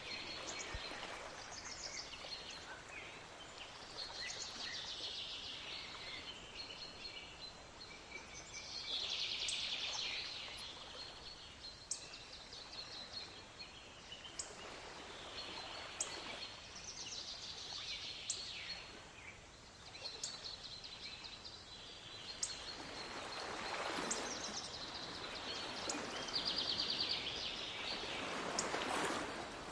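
Several birds chirping and trilling continually over the wash of waves, with the surf swelling up loudest three times, about a third of the way in and twice near the end.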